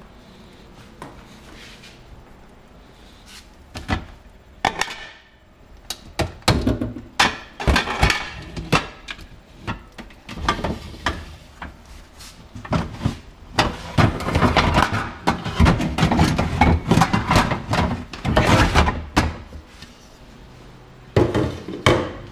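Stainless steel pots and lids clanking and knocking as they are rummaged through and pulled out of a kitchen cupboard: a run of irregular knocks and clatters starting about four seconds in, busiest in the middle, with a last couple of knocks near the end.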